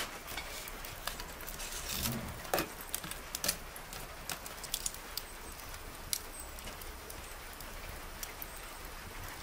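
Wood fire crackling and popping under a cast-iron pot, with irregular sharp snaps. A couple of knocks of burning logs being shifted come about two seconds in.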